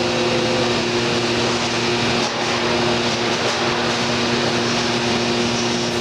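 Thermwood C-40 CNC router running: a loud, steady machine noise with a constant hum of several steady tones.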